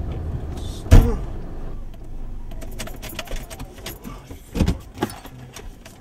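Inside a car cabin: a heavy low thump about a second in, then a run of small clicks and rattles with a jangle of keys, and a second thump near the end, over a steady low rumble.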